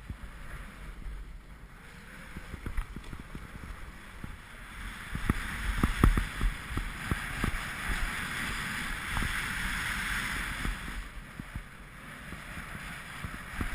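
Wind rushing over the microphone and skis hissing and scraping on packed snow during a fast downhill ski run, with short knocks from bumps in the snow, loudest about halfway through.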